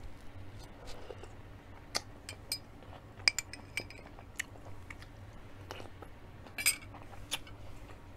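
A person eating soup: chewing and mouth noises with scattered sharp clinks of a metal spoon against glass dishes.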